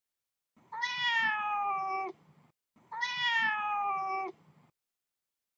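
A cat meowing twice: two long, matching meows about two seconds apart, each rising slightly and then sliding down in pitch.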